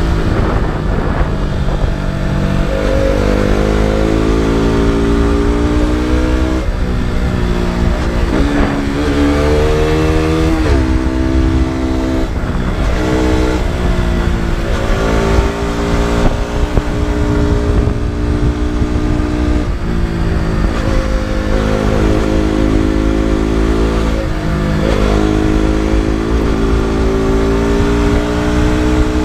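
KTM RC 200's single-cylinder four-stroke engine and exhaust under way on a ride, the revs climbing under throttle and falling back over and over as the rider shifts gears and slows for corners.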